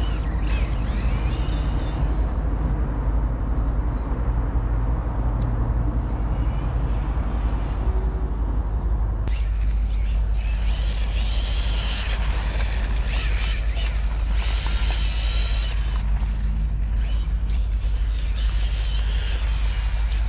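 Brushless electric motor of a 1/10-scale Tamiya RC car whining, its pitch rising and falling again and again as the throttle is worked, over a steady low rumble. The whine becomes clearer from about nine seconds in.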